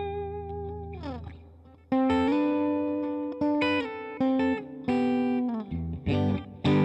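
Electric guitar on its bridge humbucker pickup played through a Digitech RP55 multi-effects patch: a held note that slides down in pitch about a second in, a brief gap, then a phrase of single notes and held notes.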